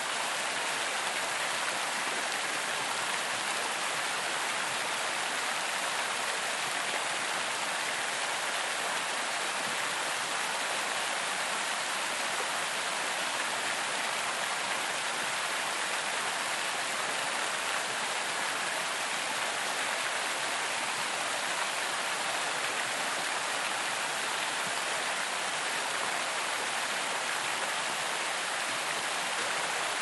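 Large outdoor water fountain: a steady, even rush of falling and splashing water.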